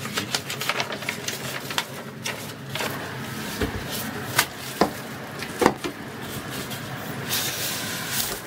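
A monitor's cardboard carton and styrofoam packing being handled: paper rustling, cardboard scraping and several sharp knocks about four to six seconds in as the box top is lifted off the foam, with a hissing rustle near the end, over a low steady hum.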